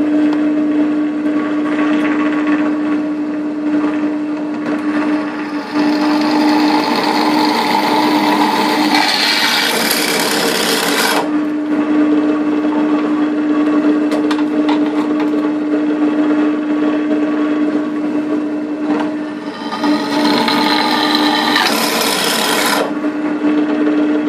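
Pillar drill starting up and running with a steady hum while an 8 mm twist bit drills a starting hole through a sheet-metal panel. Harsh cutting noise comes in twice, from about six to eleven seconds in and again around twenty seconds in, as the bit bites into the metal and throws off swarf.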